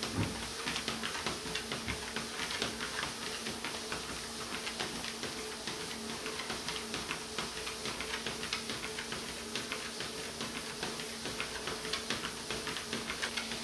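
A beagle mix's paws tapping and clicking rhythmically on a moving treadmill belt at a slow walk, about three or four taps a second, over the steady hum of the treadmill motor.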